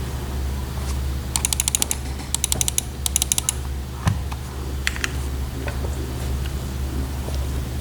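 Typing on a Neo60Cu gasket-mount keyboard with modded Cherry vintage black linear switches on an aluminium plate: three quick runs of rapid keystrokes, then one deeper thump about four seconds in, then a few scattered single keystrokes. A steady low hum runs underneath.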